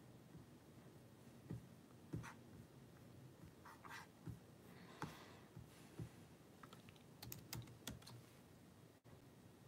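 Faint, irregular keystrokes on a computer keyboard: single taps a second or so apart, then a quick run of taps about seven seconds in.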